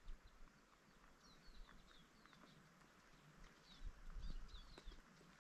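Near silence with faint, short, high chirps of small birds, a dozen or so quick downward-slurred notes in the dawn chorus. A soft low rumble with a few dull thumps comes about four seconds in.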